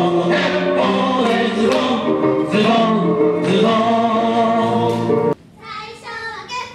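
Voices singing a song in chorus with musical accompaniment, as in a stage musical; the song cuts off abruptly about five seconds in. A quieter, high-pitched voice follows, speaking in short phrases.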